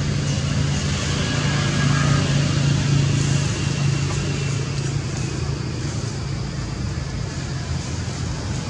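Steady low engine hum with a noisy background, a little louder about two seconds in.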